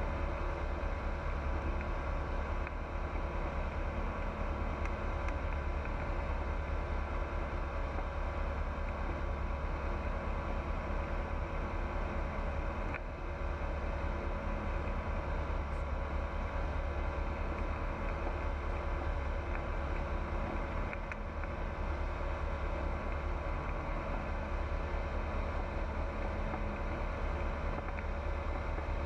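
Pipistrel Virus light aircraft's Rotax 912 four-cylinder engine and propeller running steadily, a constant drone.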